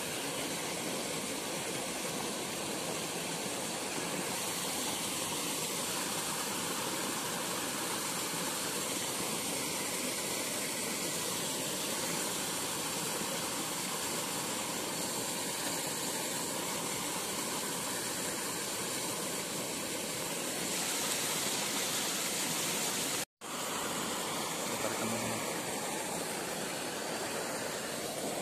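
Steady rushing noise of river water, even and unbroken except for a brief cut-out about 23 seconds in.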